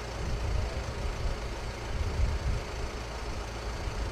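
Steady rumble of a vehicle on the move, with low road noise.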